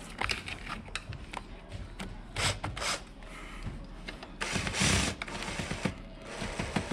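Hand tools clicking, rattling and scraping on metal as the fasteners are worked off the ATV's starter solenoid, with scattered sharp clicks, a short louder rush about two and a half seconds in and a louder, longer one about four and a half seconds in.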